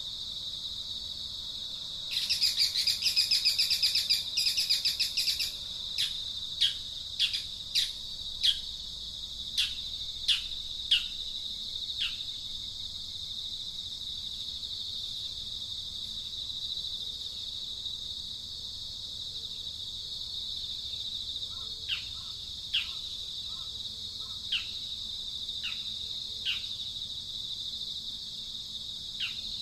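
Outdoor ambience of birds and insects: a steady high-pitched insect drone, with a burst of rapid chirping a couple of seconds in. After it come short downward-sliding bird chirps, scattered singly at irregular intervals.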